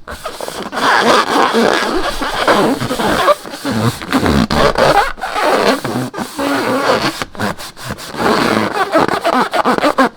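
Slime being squeezed and worked by hand, squelching and crackling irregularly with many small wet pops.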